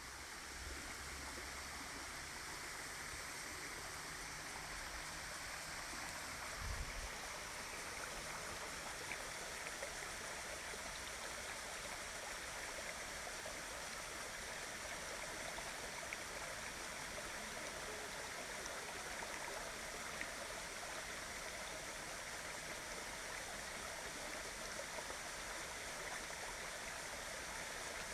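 Mountain stream and waterfall: a steady, even rush of running water, with a low rumble in the first few seconds and a brief low bump about seven seconds in.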